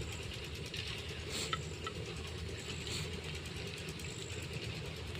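Pot of noodles cooking over a wood fire: a steady low rumble with fine, rapid ticking and a few small crackles.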